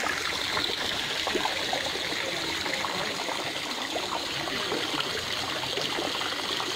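Running water, a steady rushing and trickling.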